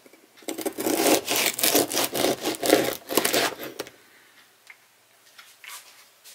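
Serrated bread knife sawing through a crusty spelt toast loaf on a wooden cutting board: a quick run of back-and-forth strokes for about three seconds, stopping once the slice is cut through, followed by a few faint light taps.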